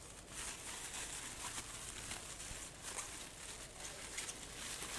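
Plastic bubble wrap rustling and crinkling as it is handled and unrolled, a soft continuous rustle with scattered faint crackles.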